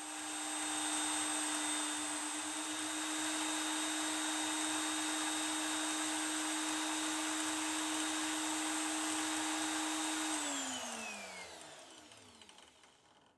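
Electric drill motor in a homemade plywood drill press running at a steady speed while a small bit bores into a plywood block. About ten seconds in it is switched off and winds down, its pitch falling as it fades.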